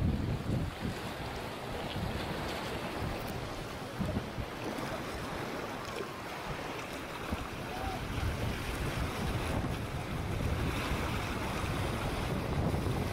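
Wind buffeting the microphone in uneven gusts over a steady wash of sea surf.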